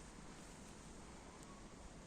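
Near silence: faint steady background hiss, with one faint tick about one and a half seconds in.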